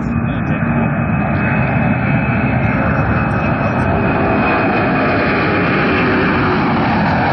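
Boeing 747-400's four jet engines at takeoff thrust as the airliner lifts off and climbs out: a loud, steady rush of jet noise that builds a little over the first couple of seconds, then holds.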